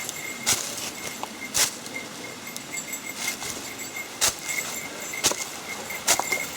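Hiking footsteps crunching through dry fallen leaves and forest litter, about one step a second.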